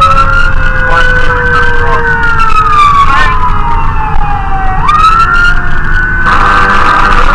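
Fire engine siren on wail: the tone sweeps up quickly, holds high, then slides slowly down, going round twice. A second, lower tone winds slowly down underneath, over a steady low rumble of engine and road.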